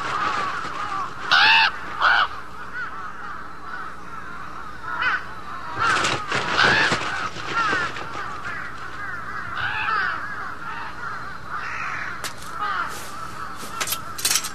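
A flock of crows cawing over and over, with two louder caws about a second and a half in. A louder, rougher sound comes about six seconds in, and a few sharp clicks near the end.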